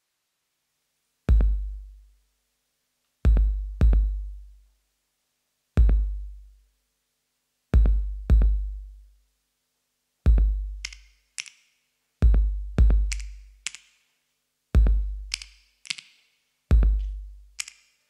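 Electronic music made up only of a sparse drum-machine beat. Deep, booming kick drums come about every two seconds, some of them doubled, and short crisp higher hits join in about eleven seconds in.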